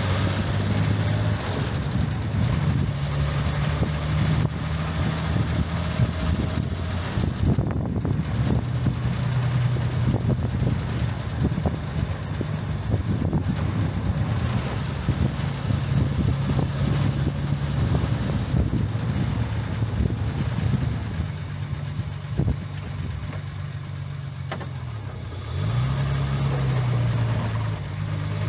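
Jaguar MkII's straight-six engine running as the car is driven, its note rising and falling with the throttle. Near the end it gets louder and climbs sharply as the car accelerates.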